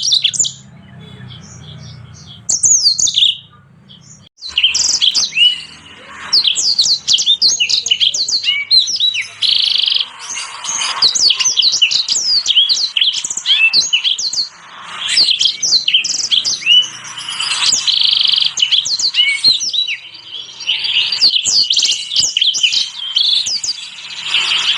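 Small finches singing in a fast, dense medley of high chirps, trills and sweeping notes, as on a canary-type combination track of yellow-fronted canary, black-throated canary and red siskin song used for tutoring caged songbirds. It is sparse for the first few seconds, then from about four seconds in the song runs on almost without a break.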